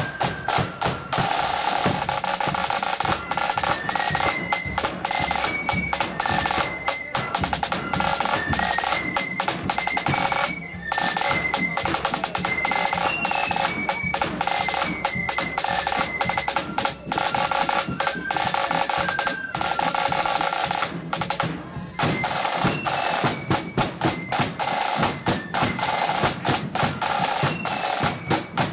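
Marching flute band playing a tune: side drums rattle in fast rolls and a bass drum beats under a high flute melody. The band breaks off briefly twice.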